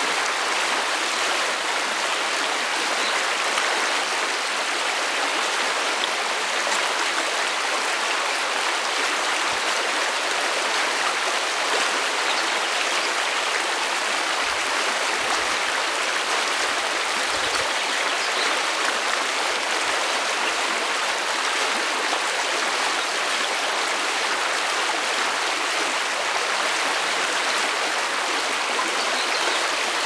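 Shallow stream rushing over a pebble and rock bed: a steady, unbroken babble of moving water.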